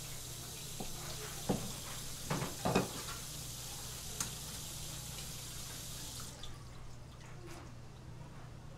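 A tap runs steadily and cuts off about six seconds in. A few short knocks land on the plastic cutting board as the fish fillet and knife are handled.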